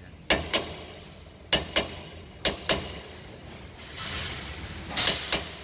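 Small hammer tapping the rim of a rusty brake drum on a TVS three-wheeler, four pairs of quick ringing metallic clinks. The taps break the rust holding the drum so it can be worked off the axle hub.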